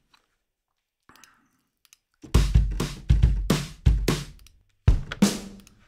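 A Logic Pro virtual drum kit (the 'Blue Ridge' patch) being auditioned: about seven irregular kick and snare hits starting a little over two seconds in, after a near-silent pause.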